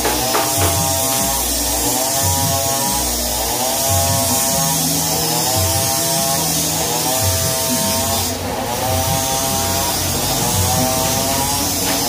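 Background music: a buzzy melody phrase repeating about every second and a half over steady low bass notes.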